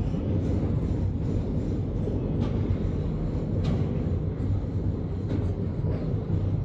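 Freight train rolling slowly past at a level crossing: a steady low rumble broken by a few sharp clacks as the wheels cross rail joints.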